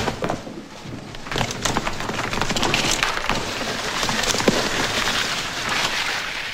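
Hurried footsteps and scuffling with sharp wooden knocks and clatter, as several men haul a collapsed man up off a wooden floor.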